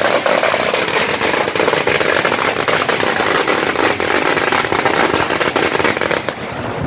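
Firecrackers going off in the street: a dense run of sharp cracks and bangs in quick succession, thinning out near the end.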